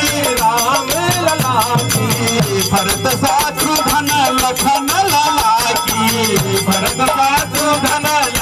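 Live Hindi devotional badhai song: a male voice and harmonium carrying a wavering melody over rattling hand percussion that keeps a steady beat.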